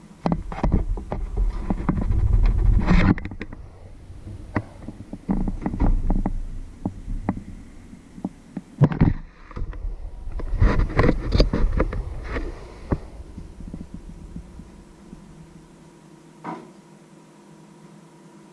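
Handling noise on the camera as it is gripped and repositioned: dull thumps, knocks and rubbing in two bouts, one at the start and one about nine seconds in, with a single knock near the end and a faint steady hum under it all.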